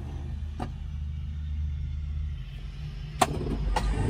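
Starter motor of a Cessna 172M's Lycoming O-320 engine labouring to crank the engine over on a weak battery, a low steady grinding rumble that fades about halfway through, with a few sharp clicks. The battery is sagging to about 3 volts under the load.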